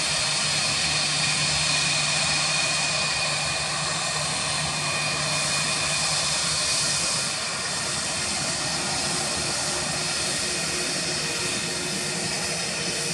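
Airbus A321 jet engines at taxi power as the airliner rolls past: a steady rushing noise with a high whine over it, easing slightly about halfway through.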